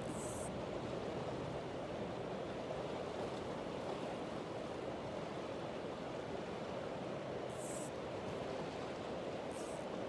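Steady rushing of river water, even and unchanging, broken three times by a brief high-pitched hiss: once at the start and twice near the end.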